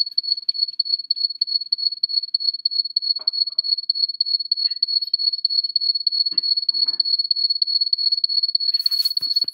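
A loud, high-pitched electronic beep pulsing rapidly and evenly without a break, an alert tone from a computer's recording setup. A few faint knocks are heard, and there is a brief rustle near the end.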